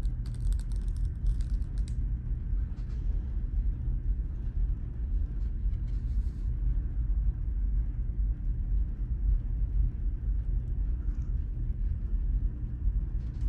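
Low, steady rumble of the ferry's engines carried through the ship's hull, with a few light clicks in the first couple of seconds.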